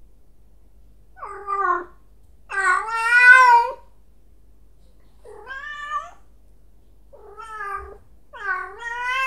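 Domestic cat meowing loudly, five drawn-out meows a second or two apart. The second meow is the longest and loudest.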